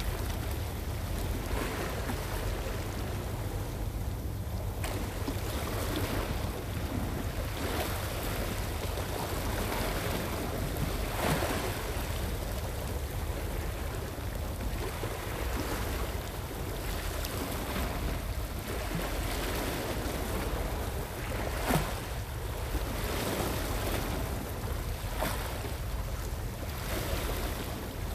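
Small waves washing against the shore rocks, rising and falling in slow swells, with wind rumbling on the microphone. A few brief sharp clicks stand out, the loudest about two-thirds of the way through.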